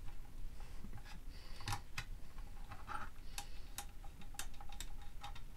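Light, irregular clicks and taps of a small screwdriver and fingers on screw terminals and the plastic case while a wire is fastened into a terminal, about a dozen sharp ticks spread unevenly.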